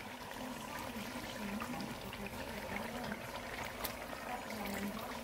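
A pot of chicken, juices and carrots simmering on the stove: a steady, gentle bubbling with small scattered pops.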